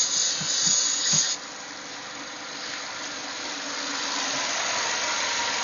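Aerosol can of white grease spraying one short hissing burst, about a second and a half long, into a car's hood latch, with a few light clicks. A steady background noise follows.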